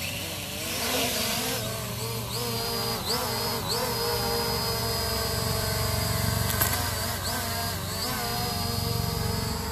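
SG906 Pro quadcopter's brushless motors and propellers whining in flight, the pitch dipping and climbing back several times as the throttle changes, steady in between.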